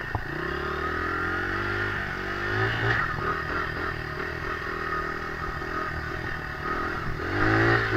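Dirt bike engine running under the rider's throttle, its pitch rising and falling, then revving up sharply near the end.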